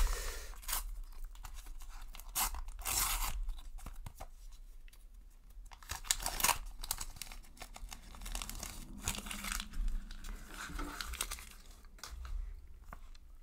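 A Panini sticker packet's crinkly wrapper being torn open by hand, then crinkled as the stickers are pulled out and handled, in a run of irregular short rips and rustles.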